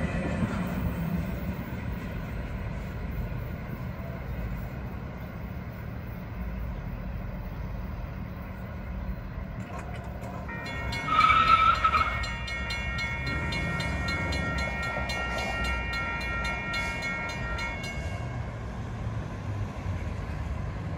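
Low rumble of a freight train receding after its tail end has cleared the crossing. About ten seconds in, the grade-crossing bell starts ringing as the gates go up, with a brief loud high tone just after it starts; the bell stops a few seconds before the end.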